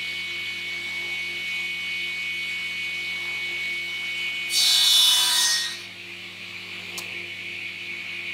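Sliding panel saw running with a steady whine, its blade biting into a rose gum slab about halfway through in a loud, rasping burst of a little over a second. A single sharp click follows near the end.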